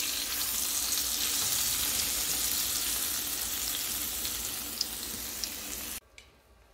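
Oil and cauliflower juices sizzling and bubbling in a hot glass baking dish in the oven: a steady hiss with a couple of faint pops. It stops abruptly near the end.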